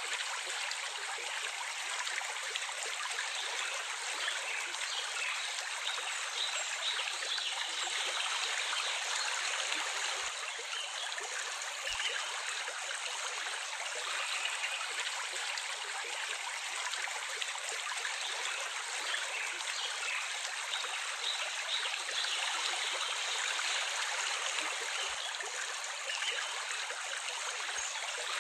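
Running water flowing steadily, an even, unbroken splashing hiss with no breaks or changes.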